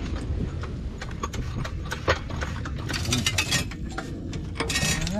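Irregular metallic clanks, knocks and rattles of tools and exhaust parts being worked under a car, with one sharp knock about two seconds in.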